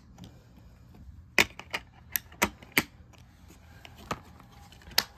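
Plastic DVD case clicking and snapping as it is handled: the disc pressed down on the case's centre hub and the case moved and shut. About eight sharp clicks come at uneven intervals.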